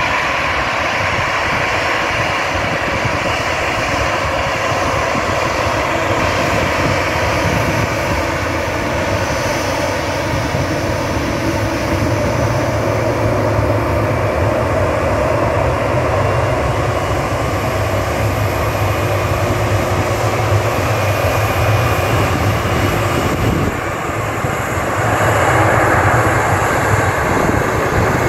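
The four CFM56 turbofan engines of an Airbus A340-200 running at taxi power as the airliner rolls past: a steady jet whine and rumble, getting louder near the end.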